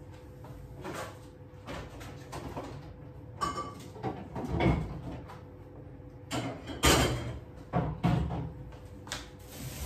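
A refrigerator door being opened and things being moved about inside it as someone tries to make room for a juice carton, giving a series of knocks and clatters, the loudest about seven seconds in.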